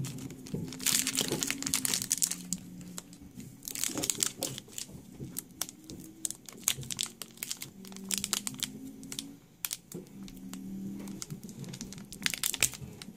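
Foil wrapper of a Pokémon TCG booster pack crinkling and tearing as it is handled and opened, in irregular crackly bursts, the loudest about a second in, around four seconds in and near the end.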